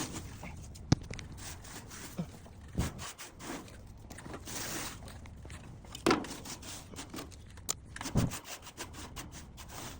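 Debris being scraped and pulled out by hand from inside an opened air-conditioner condenser unit: irregular rustling and scraping, with a few sharp clicks and dull knocks.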